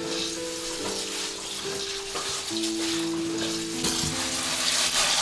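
Rice being washed by hand in a metal bowl under a running tap: grains swishing and scrubbing in the water, with a steady patter of the tap. Background music of slow, held notes plays along.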